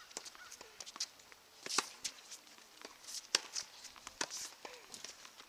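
Sharp, irregular pops of tennis balls bouncing and being struck by racquets on outdoor hard courts, the loudest about two and three and a half seconds in, with light footsteps on the court.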